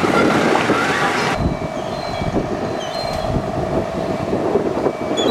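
Fire engine running loud with a dense, rushing noise; about a second and a half in, the sound cuts to a quieter Scania fire engine's diesel engine running with a steady hum and a few short high squeaks.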